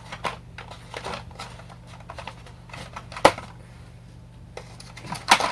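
Toy packaging being handled and worked open: scattered rustles and small clicks, with one sharp snap about three seconds in and a louder clatter near the end.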